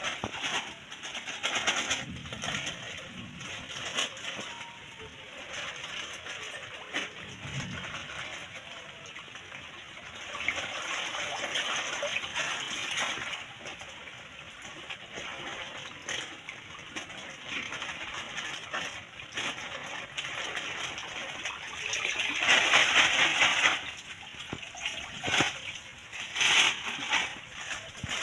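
Shallow pond water sloshing and splashing as a plastic bag is dipped and swished through it to release koi fry. The splashing comes and goes, loudest near the end.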